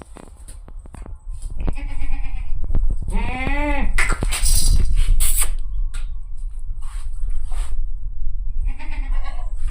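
Goats bleating: three calls, the longest a wavering bleat about three seconds in, with a loud low rumble underneath from about a second in.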